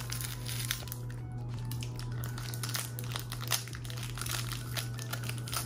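Clear plastic snack wrapper crinkling in the hands while a light, hollow puffed snack is bitten into and chewed, with scattered small crackles. A steady low hum runs underneath.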